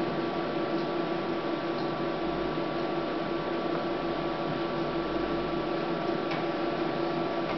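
Memjet SpeedStar3000 label printer idling in standby: a steady fan-like hum with a constant mid tone and a fainter higher whine, with a couple of faint ticks.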